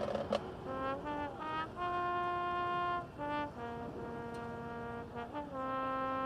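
Marching band brass section playing a slow passage of sustained chords, each held for a second or more before moving to the next.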